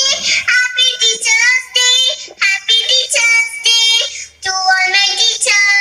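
A child singing a melody solo in a high voice, in short phrases with brief breaks between them.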